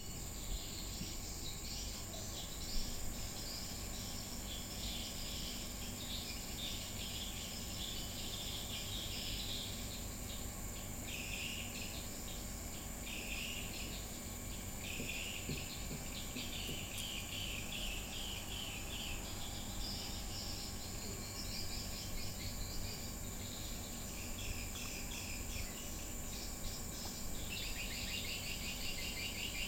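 Insects chirring outdoors in repeated bouts of rapid, high-pitched pulses over a steady low background rumble, with one brief knock about three seconds in.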